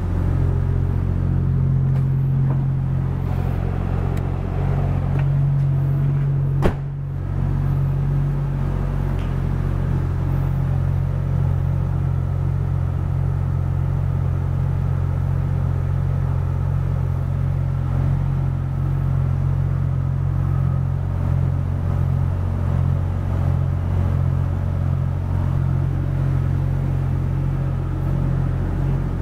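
Toyota Soarer's 1JZ-GTE 2.5-litre twin-turbo inline-six idling steadily, a smooth low hum. A single sharp click about seven seconds in.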